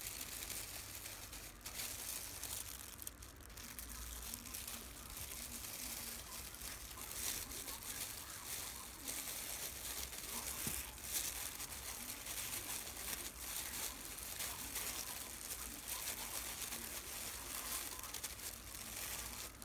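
Disposable plastic gloves crinkling and rustling as hands shape seasoned rice and stuff it into fried tofu pockets, with many small crackles.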